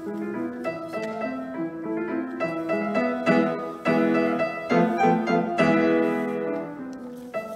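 Upright piano played solo, a flowing run of notes with several loud accented chords in the middle, growing quieter near the end.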